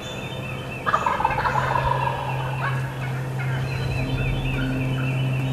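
Wild turkey gobbler gobbling once, a loud rattling call starting about a second in and lasting about a second. Songbirds sing in the background.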